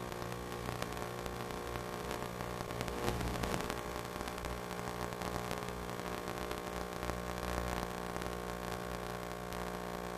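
A steady hum made of several fixed tones, under a static-like hiss.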